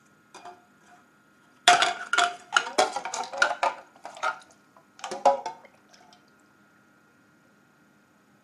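Metal gearbox gear shafts clinking and knocking against a metal pot as they are washed in paraffin: a rapid flurry of clinks lasting about three seconds, then a shorter burst a moment later.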